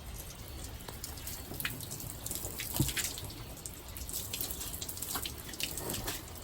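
Water dripping and trickling onto a carbon fiber hood during hand wet sanding, with scattered small splashes and drips.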